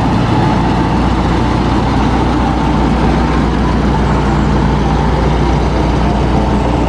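Concrete mixer truck's diesel engine idling steadily: a low, even rumble with a thin steady whine above it.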